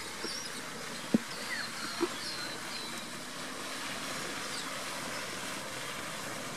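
Quiet outdoor ambience: a steady background hiss with faint, high bird chirps scattered through it, and a brief soft knock about a second in and another about two seconds in.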